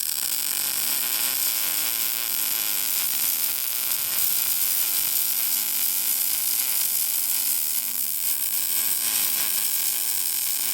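Arc welder running a continuous full weld bead on a steel part, a steady unbroken hiss.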